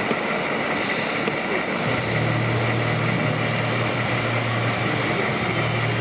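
Radio-controlled scale construction machines running: a steady low drone sets in about two seconds in, over continuous background noise.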